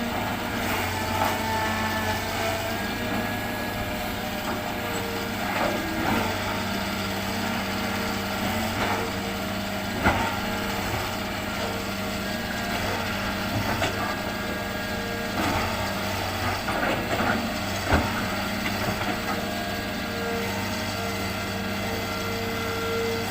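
Hitachi hydraulic excavator's diesel engine running steadily while it digs and loads sand, with scattered sharp knocks, the loudest about ten and eighteen seconds in.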